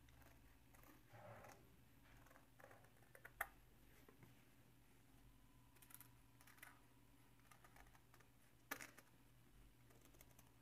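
Large tailor's shears snipping through stiff buckram: faint, scattered crisp snips, with two sharper clicks of the blades about three and a half seconds in and near nine seconds.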